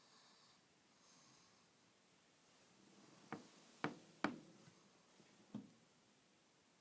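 Quiet, soft breathing of a sleeper in the first second and a half, then four sharp clicks spread over about two seconds midway through.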